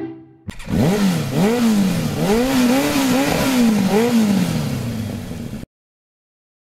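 A motor revving up and down over and over, its pitch rising and falling about twice a second over a rushing noise. It cuts off suddenly near the end.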